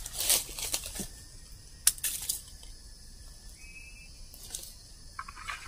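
Machete chopping into the stems of a young wild salak (snake fruit) palm: a few sharp strikes in the first two seconds, then quieter rustling and snapping as the cut shoot is handled.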